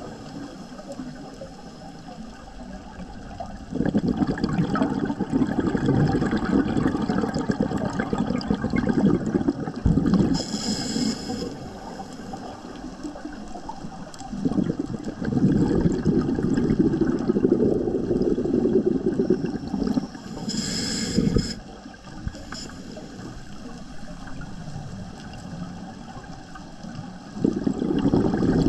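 Scuba diver breathing through a regulator underwater: long bursts of exhaled bubbles lasting several seconds each, three in all, with a short hiss of inhalation through the regulator after the first and after the second.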